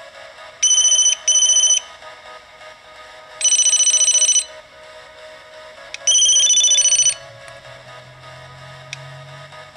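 Ericsson T20s mobile phone playing monophonic ringtones through its buzzer: short bursts of shrill, rapidly beeping melody, two quick bursts about a second in, another near the middle and a last one around six seconds in.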